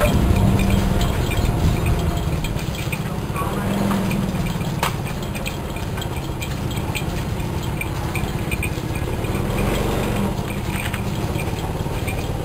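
An engine running steadily at low speed, a continuous low rumble with a hum that comes and goes.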